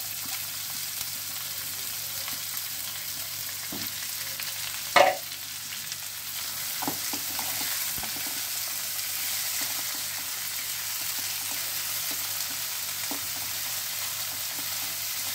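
Chopped onion, tomato and aromatics sizzling in mustard oil in a nonstick kadai, stirred with a silicone spatula: a steady frying hiss. A sharp knock about five seconds in, with a few lighter taps around it.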